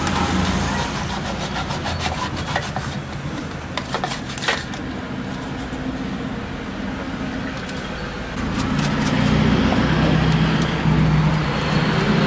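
A steady low motor hum that grows louder about eight seconds in, with a few light clicks of a knife blade against a stainless steel tray as pork face skin is sliced.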